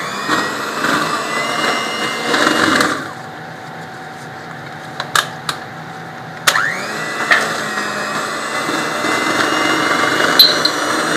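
Electric mixer beating cake batter. It runs for about three seconds and stops, then comes a couple of clicks. About six and a half seconds in it starts again with a rising whine and runs steadily.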